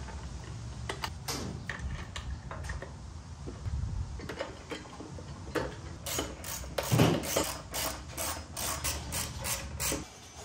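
Hand tools working on metal bolts on the motorcycle's rear subframe: irregular sharp clicks and clinks, sparse at first, then coming thick and fast from about halfway through. A low steady hum runs underneath and stops near the end.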